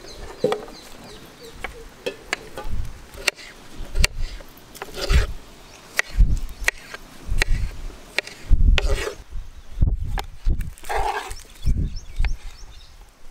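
A kitchen knife chopping ripe tomatoes on a wooden cutting board: an irregular run of knocks as the blade goes through and strikes the board.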